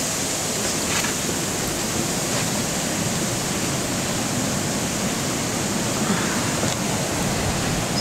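Steady rushing noise of blizzard wind, with a few faint clicks.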